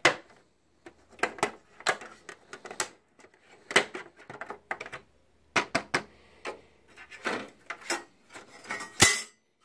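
Plastic and sheet-metal parts of a projector being pushed into place by hand, a string of irregular clicks, taps and clacks as the pins are worked toward their holes, with the loudest knock about nine seconds in.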